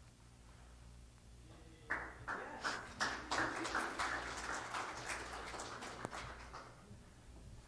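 A small congregation applauding: a burst of hand claps begins abruptly about two seconds in and thins out over the next few seconds.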